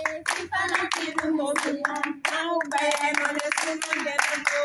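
A group of girls singing together while clapping their hands in a steady rhythm.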